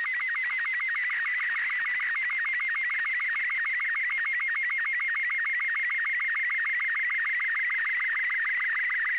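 Slow-scan television (SSTV) picture signal from the LAPAN-A2 (IO-86) satellite, received through an RTL-SDR on FM: a steady warbling tone around 2 kHz, broken several times a second by short, regular dips in pitch that mark each scan line, over a light radio hiss. This is the image data of a new picture being transmitted.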